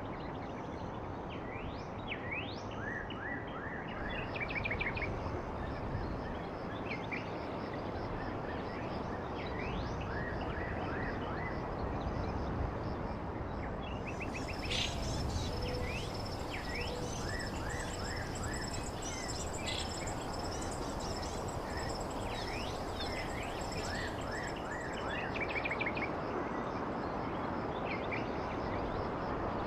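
Outdoor ambience of birds chirping, many short quick calls, over a steady background noise. From about a quarter of the way in to near the end, an insect adds a thin, steady high buzz.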